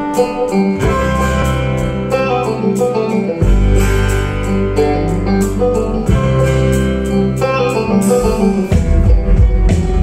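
Live bluegrass-style band music: acoustic guitar and banjos picking over upright bass and drums, with deep bass notes changing every couple of seconds.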